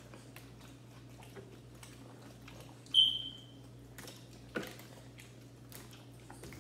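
Quiet eating sounds of people working through chicken legs: soft chewing and small clicks, with one sharp clink that rings briefly about three seconds in and a smaller knock about a second and a half later.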